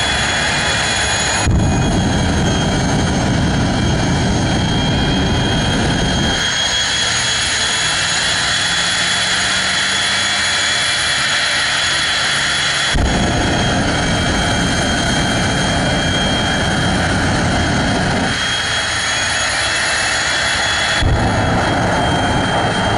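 Jet dragster's turbine engine running with a steady high whine. A deep roar cuts in suddenly about a second and a half in, again about 13 seconds in and once more near the end, dropping away after several seconds the first two times; with the last surge the afterburner is lit, flame blasting from the tailpipe.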